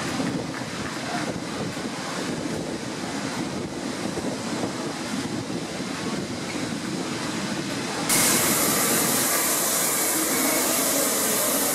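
LNER A3 steam locomotive Flying Scotsman rolling slowly through a station, a low rumble of wheels and running gear. About eight seconds in, the sound cuts to a louder, steady hiss of escaping steam.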